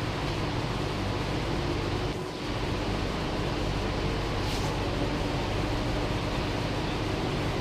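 Steady rushing hum inside a Sydney Metro train carriage, the train's ventilation and running equipment, with a brief dip about two seconds in.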